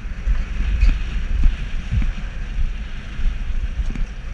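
Alpine coaster sled running fast down its rails: a steady low rumble from the wheels on the track, with wind buffeting the microphone and a few light knocks.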